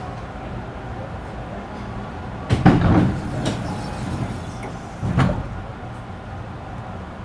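Inside a Tobu commuter train car: a steady low hum, broken by two loud, sharp mechanical thumps with a rush of noise. The two thumps come about two and a half seconds apart near the middle, and the first one lasts about a second.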